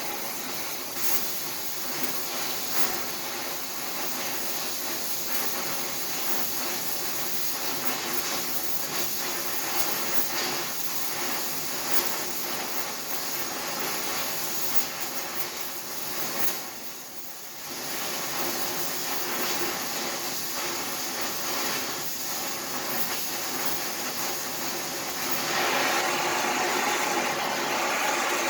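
Electric arc welding: the arc's steady crackling sizzle, which breaks off briefly about seventeen seconds in, then strikes again. It is louder and fuller in the last few seconds.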